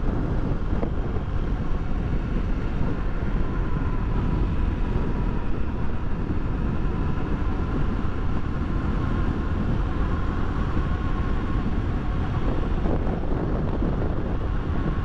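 Honda XRE300's single-cylinder engine running steadily at a cruise of about 75 km/h, under steady wind rush on the microphone.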